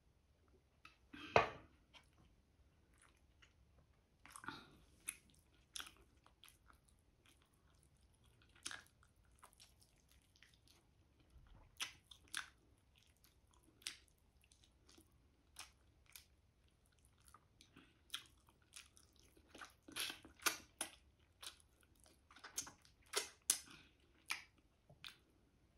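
Close-up chewing and biting of braised chicken adobo eaten by hand: short, scattered wet clicks and smacks, busier near the end. One louder thump about a second in.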